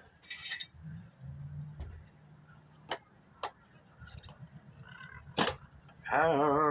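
Metal tools clinking and tapping against the wheel as a dirt-bike tire is pried off the rim with a wrench and screwdriver: a short scrape at the start, then a few sharp separate clicks. Near the end a man lets out a long, loud, drawn-out groan.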